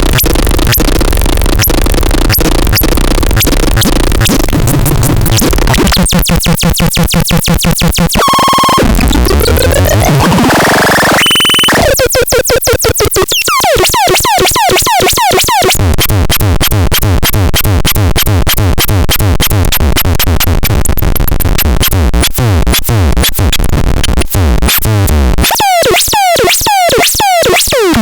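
Loud, dense electronic synthesizer sounds that change every few seconds: fast pulsing repeats, stretches of harsh noise, and gliding pitch sweeps, with a short held tone about halfway through.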